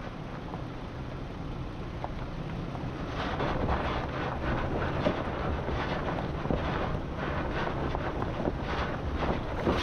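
Off-road vehicle driving a desert trail: engine and tyre noise with wind buffeting the microphone, plus frequent short knocks and crackles from stones and rough ground. It gets louder about three seconds in.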